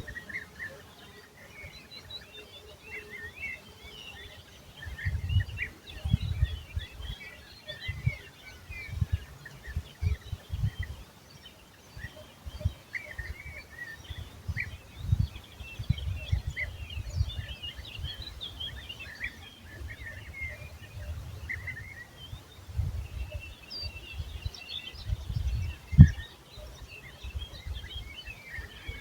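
Birds chirping and singing in many short, high calls, with gusts of wind rumbling on the microphone and one sharp thump near the end.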